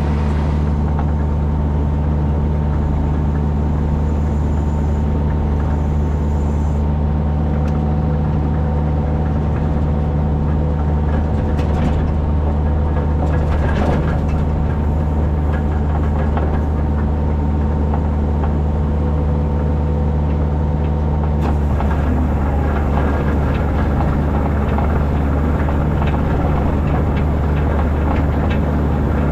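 Tractor engine running at a steady speed, a constant low hum with its overtones. A rougher, noisier clatter joins it about two-thirds of the way through.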